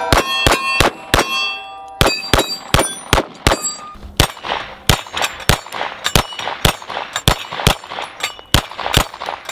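Dan Wesson DWX pistol fired in rapid strings, several shots a second, with steel plate targets clanging and ringing on hits.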